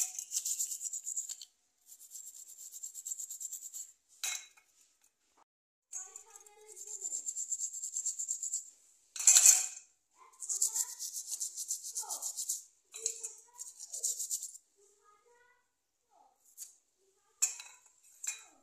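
Toothbrush bristles scrubbing a spark plug in a steel bowl of petrol, in several bouts of rapid scratching strokes a few seconds long, with sharp clinks of metal on the bowl, the loudest about nine seconds in.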